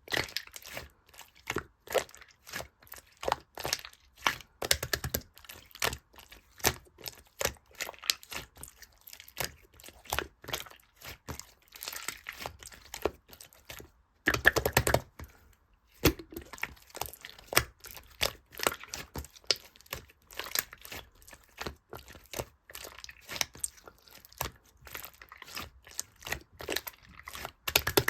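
Clear, colourless slime being squeezed and worked by hand, giving an irregular run of quick crackling clicks and pops, with a denser, louder stretch about halfway through.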